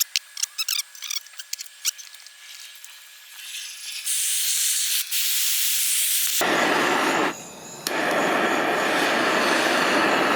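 A run of sharp clicks and a thin high hiss, then about six seconds in the steady loud hiss of a propane torch flame, which dips briefly about a second later and then carries on.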